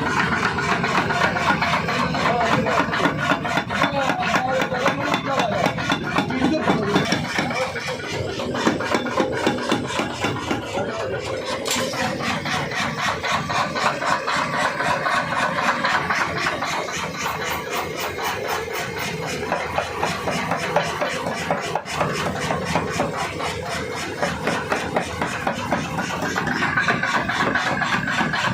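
Mechanical forging power hammer pounding metal in rapid, evenly repeated blows.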